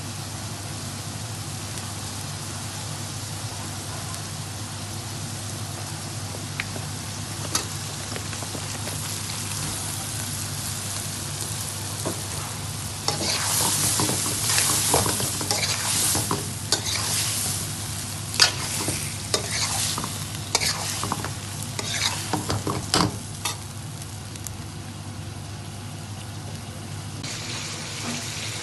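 Chicken bhuna frying in a pan with a steady sizzle over a low hum. About halfway through, a spoon scrapes and stirs the pan in quick, irregular strokes for several seconds, then the sizzle goes on alone.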